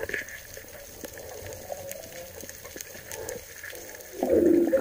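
Muffled underwater hiss with scattered faint clicks, heard through an underwater camera. About four seconds in comes a much louder rush of water and bubbling, as the diver rises toward the surface with a speared fish.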